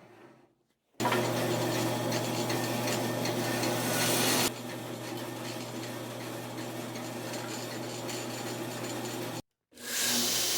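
Desert ironwood knife handle scales being ground and sanded flat on an abrasive, a grainy rubbing over a steady machine hum. It is louder for the first few seconds, then drops to a quieter pass after an edit.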